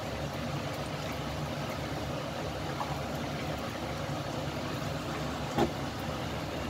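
Pot of coconut-milk kolak heating toward the boil on the stove: a steady hiss and low rumble, with a ladle stirring and one sharp knock of the ladle against the pot about five and a half seconds in.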